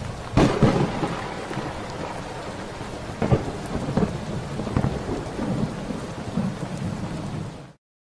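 Rain and thunder sound effect: a steady hiss of rain with several sudden claps of thunder, the loudest about half a second in and others around three to five seconds in. It cuts off abruptly near the end.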